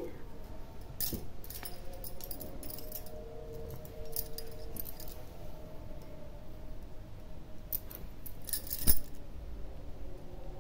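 Faint, scattered small clicks and clinks of hands handling yarn and crochet work, with one sharper click near the end.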